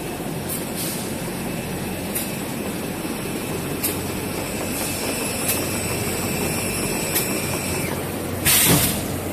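Automatic toilet paper and kitchen towel production line running: a steady machine drone with a low hum and a faint high whine, a few faint clicks, and a short loud hiss near the end.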